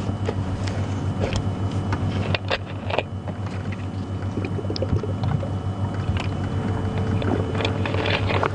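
Safari vehicle's engine idling with a steady low hum, with a few short sharp clicks and snaps scattered over it.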